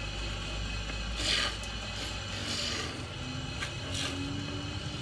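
Wood lathe turning a blank into spinning tops: the motor runs with a steady low hum while a hand chisel scrapes against the spinning wood in several short passes, the loudest about a second in.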